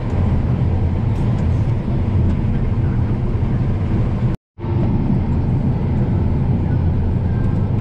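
Combine harvester running under load while harvesting corn, heard from inside the cab: a steady low drone of engine and threshing machinery. The sound cuts out completely for a split second a little past the middle, then resumes unchanged.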